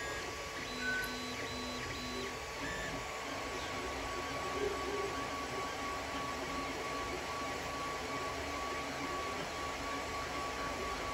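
Creality Ender 3 3D printer printing, its motors and fans running with a steady high whine and a few short stepped motor tones about a second in.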